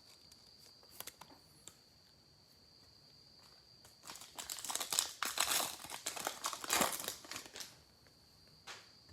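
Foil wrapper of a trading card pack crinkling as it is torn open and handled, from about four seconds in until near the end, with a few faint clicks before it.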